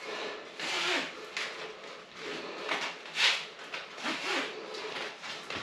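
TRX suspension-trainer nylon straps sliding through their adjuster buckles as they are lengthened: a string of short scraping rubs, the loudest about three seconds in.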